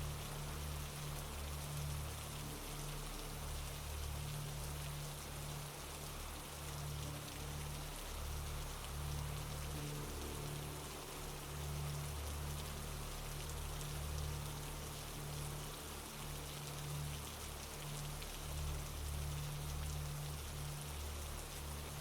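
Steady rain falling, an even hiss of drops on surfaces, with a low rumble that swells and fades underneath.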